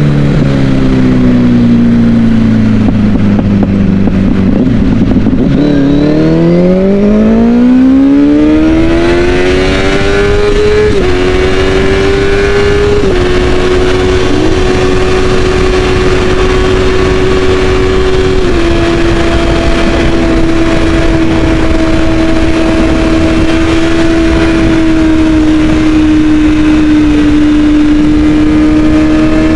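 Kawasaki ZX-10's 1000 cc four-cylinder engine under way. The revs fall for the first five seconds, then climb hard under acceleration, with two quick drops of pitch from upshifts about eleven and thirteen seconds in. The engine then holds a steady cruise, with another gear change near eighteen seconds, over a constant rush of noise.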